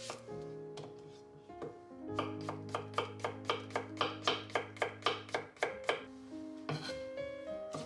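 Kitchen knife slicing zucchini on a wooden cutting board: a few single cuts, then from about two seconds in a quick, even run of strikes, about four a second. Background music with sustained tones plays underneath.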